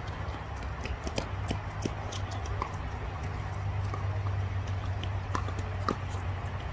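Scattered light knocks and taps from play on a tennis court, coming at uneven intervals over a steady low hum.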